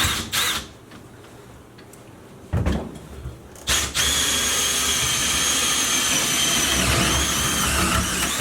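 Power drill boring into a metal door, running steadily under load from about four seconds in, its whine dipping briefly once partway through. A few short knocks come before it starts.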